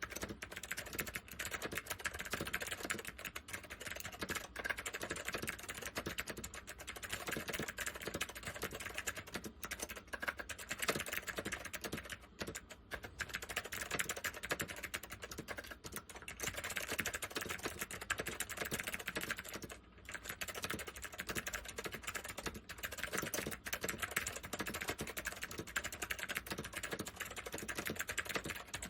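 Continuous typing on a Northgate OmniKey 101 keyboard with waxboiled Alps SKCM White clicky switches: a rapid run of key clicks, easing off briefly about twelve and twenty seconds in.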